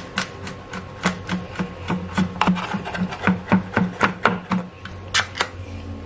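Chef's knife mincing garlic on a wooden cutting board: quick, even chopping strokes, about four a second, each a sharp knock of the blade on the wood, stopping a little before the end. Two sharper clicks follow just before the end.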